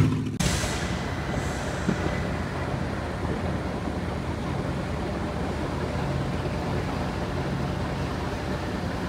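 Car ferry underway: a steady low engine hum under a constant rushing noise from the churning stern wake and wind.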